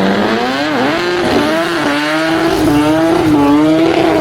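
Car engine revving at high rpm, its pitch dipping briefly about half a second in, then climbing again and wavering at a high, held note.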